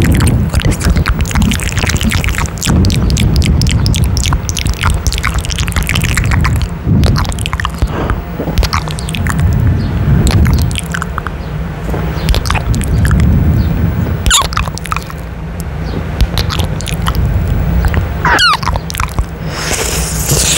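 Close-miked kissing and lip smacks pressed right on a condenser microphone's grille: a dense run of sharp wet clicks over a heavy low rumble from breath and mouth contact with the mic.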